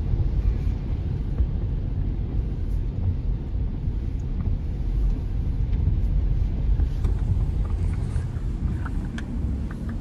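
Steady low rumble of road and tyre noise inside a moving car's cabin, on a wet road. A few faint ticks come near the end.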